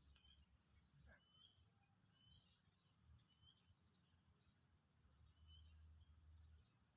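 Near silence: faint outdoor ambience, with a steady high insect drone and scattered short bird chirps.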